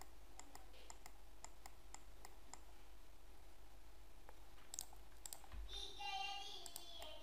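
Faint, light clicks of a computer mouse and keyboard, about two a second at first and then more scattered. A brief faint voice-like tone comes near the end.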